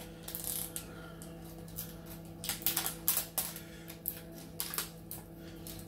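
Plastic tub lid being opened and handled: irregular sharp plastic clicks and crackles, thickest about two and a half to three and a half seconds in, with a few more near the end.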